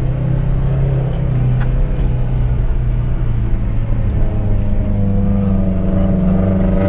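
Small 4x4 SUV's engine heard from inside the cabin, pulling under load through soft dune sand. Its revs rise about four seconds in and hold higher as it climbs the slope.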